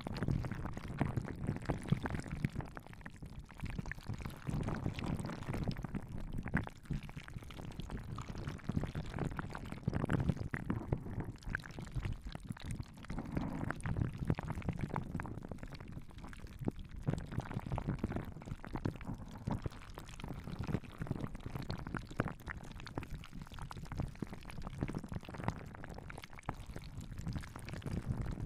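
Hands rubbing and moving right next to the microphone in an ASMR massage: a dense, continuous run of soft, wet-sounding rustles and small crackles.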